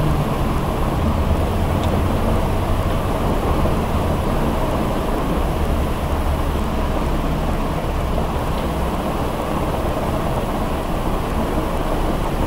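Steady, even low rumbling noise with no clear rhythm or pitch.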